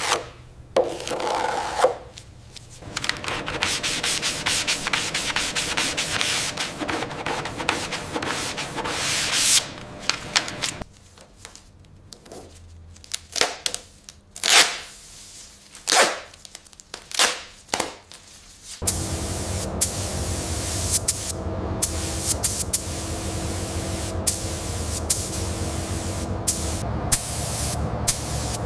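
Abrasive sanding: continuous rubbing for about ten seconds, then a series of separate strokes. For the last third it gives way to a steady hiss with scattered ticks.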